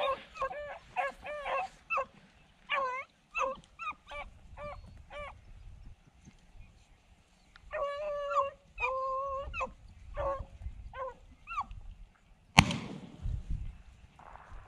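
Beagles baying on a rabbit's track: a string of short yelps, then a few longer bawls about eight seconds in. Near the end comes one sharp click, the loudest sound, with a short dull thump after it.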